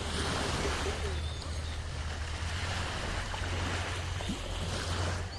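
Busy beach ambience: surf washing in under distant crowd chatter, with wind rumbling on the microphone.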